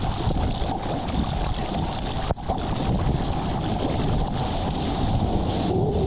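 Ocean surf and rushing water with wind buffeting the microphone: a dense, steady rush that drops out for an instant about two seconds in.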